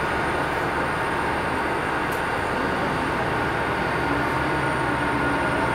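Auxiliary power unit of a parked Airbus A319 running steadily at the stand: an even rushing noise with a faint high whine. A lower hum comes in about four seconds in.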